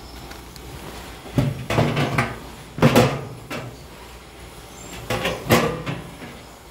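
Curved sheet-steel lower door on a homemade steel-drum grill slid open by its handle, steel scraping on steel. The scrapes come in strokes about one and a half and three seconds in, then again about five and a half seconds in.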